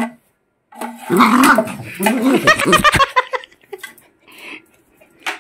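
Small Pomeranian-type dog growling and barking in one loud burst of about two seconds starting about a second in, then a few faint scuffling sounds.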